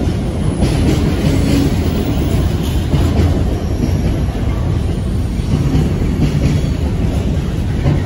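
Container wagons of a long intermodal freight train passing close by: a steady rumble of wheels on rail with irregular clacks over the rail joints.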